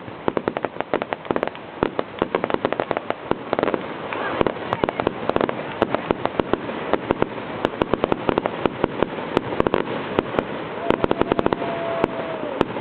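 Aerial fireworks crackling: a dense, rapid run of many small pops and reports with no let-up. A steady whistle comes in about eleven seconds in and falls away shortly after.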